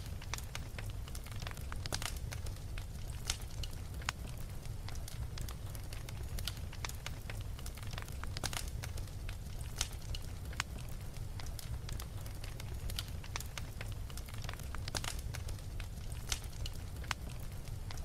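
Crackling fire: irregular sharp pops and snaps, some much louder than others, over a steady low rumble.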